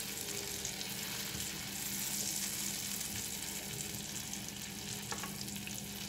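Chicken roulades sizzling steadily in foaming butter in a frying pan while tongs turn them.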